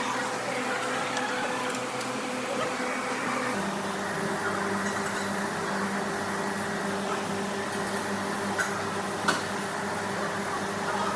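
Steady machine hum and room noise with a few faint clicks. About three and a half seconds in, the hum shifts abruptly to a different pitch.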